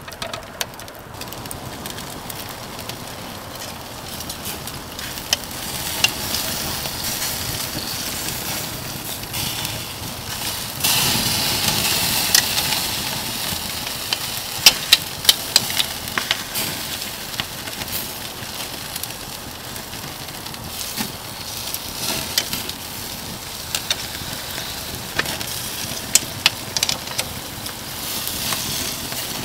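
Ribeye steak sizzling on a grill over oak embers, with many sharp crackles and pops from the wood fire. The sizzle gets suddenly louder about eleven seconds in.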